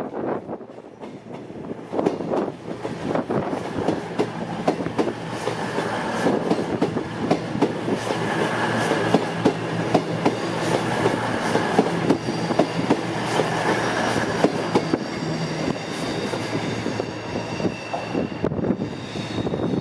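Virgin Voyager diesel-electric train running past along the platform: a steady low engine hum, with its wheels clicking over rail joints. High thin tones join in over the last few seconds as it goes by.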